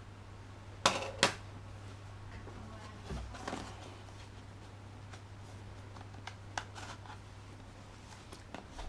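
A USB charger and its box and packaging being handled: two sharp clicks about a second in, a dull thump, then scattered lighter clicks, over a steady low hum.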